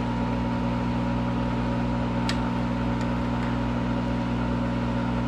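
Monarch 10EE lathe running during warm-up, with a steady, even hum and a faint higher steady tone. There is one light click about two seconds in.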